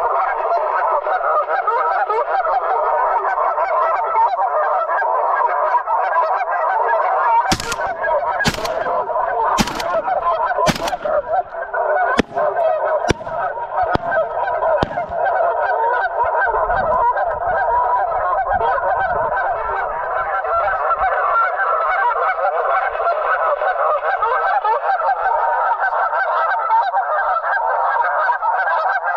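A flock of geese honking continuously, with four shotgun blasts about a second apart some seven seconds in, followed by a few fainter sharp cracks.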